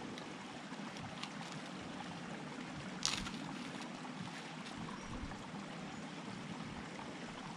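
Small mountain creek running steadily over its bed, an even rushing of water, with one brief sharper noise about three seconds in.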